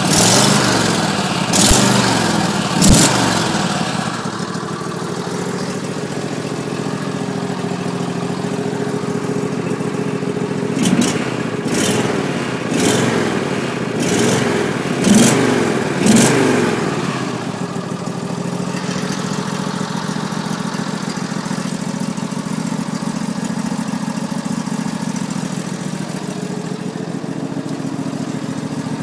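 Garden tractor engine running, blipped up in quick revs twice near the start and about six times around the middle, then settling to a steady idle.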